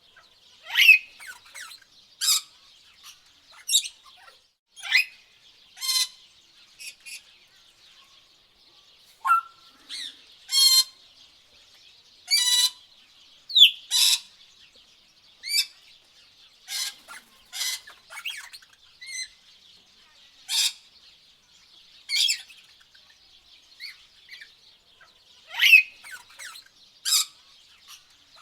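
Tropical birds calling: short, sharp, high chirps and whistled notes, one every second or two, some with a quick falling slur, over a faint steady high hiss.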